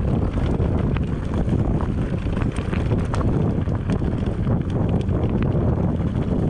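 Wind buffeting the microphone of a bike rider's camera in a steady low rumble, with scattered knocks and rattles from riding over a rough trail.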